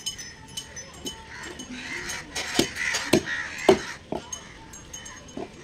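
Heavy sickle-shaped chopping knife hacking into a large katla fish head on a round wooden chopping block. There is a run of sharp chops about halfway through and one more near the end.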